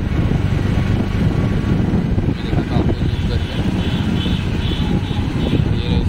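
Steady low rumble of a vehicle's engine and road noise, heard from on board while driving along a city street.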